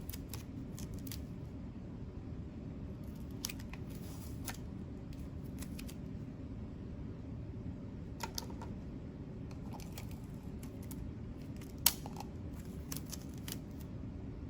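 Strips of tape being handled and pressed onto a light switch plate cover: scattered small clicks and ticks over a steady low hum, with one sharper click a little before the end.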